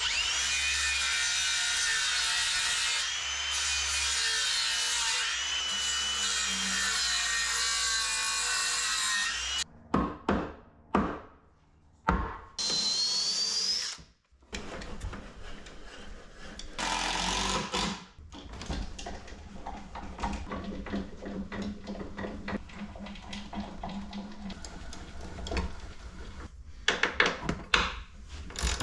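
Cordless power tool cutting notches into a wooden frame, running steadily for about ten seconds with a high whine and then stopping. After that come shorter bursts from a cordless drill and scattered knocks and clicks from handling the wood.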